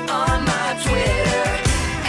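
Pop song with a sung vocal over a steady drum beat.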